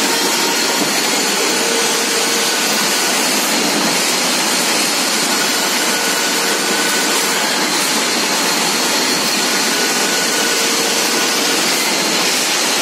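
Steady machinery noise inside a steel rolling mill: an even, hissing din with faint steady tones coming and going over it.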